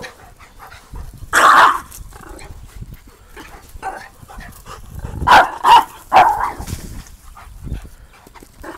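A dog barking in play: one bark about a second and a half in, then three barks in quick succession a few seconds later.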